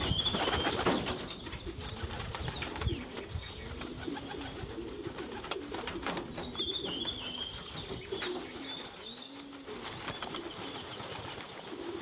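Pigeons cooing over and over in a wire-mesh aviary, low rolling coos, with a few higher chirps from another bird near the start and about halfway through.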